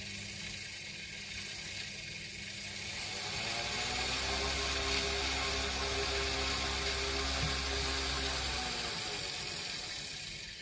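Three small electric motors driving a fan through rubber-band belts, whirring. About three seconds in they speed up with a rising whine and get louder, hold steady, then wind down near the end.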